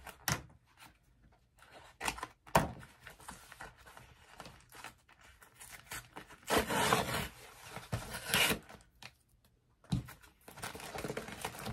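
A Priority Mail envelope being torn open and handled: scattered paper rustles and small taps, with a longer stretch of tearing and crinkling a little past the middle, then more rustling of the packaging near the end.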